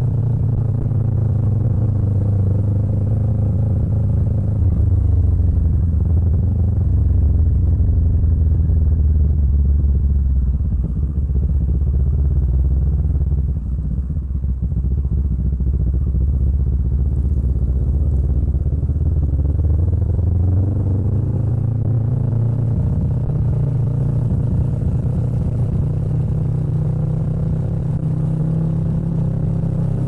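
Kawasaki Ninja 650's parallel-twin engine breathing through an aftermarket Arrow exhaust, running at low to moderate revs on the move. The note falls and goes rougher about halfway through, then climbs again.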